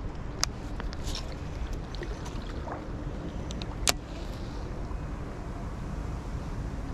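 Steady low rumble of wind on the microphone, with a few sharp clicks from a baitcasting reel being handled, the loudest about four seconds in.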